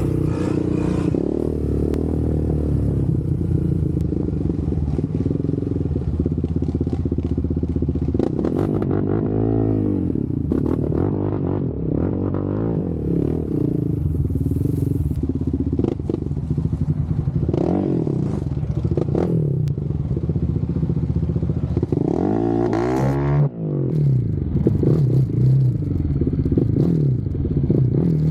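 Off-road vehicle engines running steadily, revving up and back down a few times, around ten seconds in, again near eighteen seconds, and most strongly a little after twenty-two seconds.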